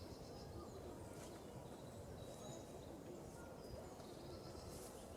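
Faint outdoor background: a low steady rumble with a few short, high bird chirps.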